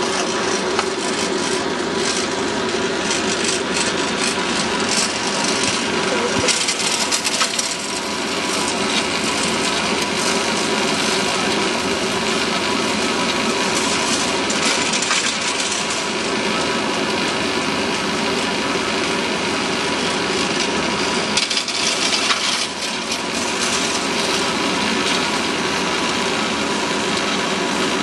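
Single-seat chairlift in motion, heard from the chair: a steady rattling, rasping noise of the haul rope and chair grip running over the sheave wheels, with louder clattering spells about 7 s and 22 s in.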